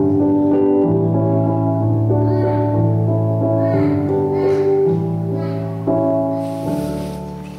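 The closing bars of a live song: sustained instrumental chords over a bass line that moves about every second and a half, fading away near the end.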